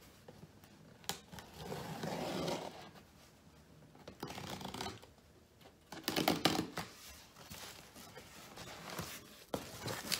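Knife blade slicing through packing tape on a cardboard box, with tape tearing and cardboard scraping in irregular bursts, the loudest about six seconds in; near the end cardboard flaps are pulled open.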